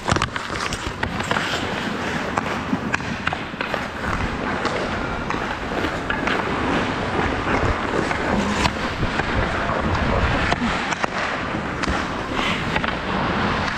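Ice hockey skates scraping and carving across the ice, with many sharp clacks of sticks on the ice and puck, the loudest one at the faceoff at the very start.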